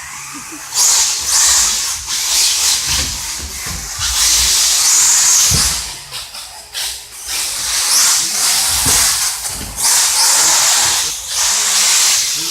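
Radio-controlled cars running hard, a loud high hissing whir that surges and fades every second or two as they speed up and back off.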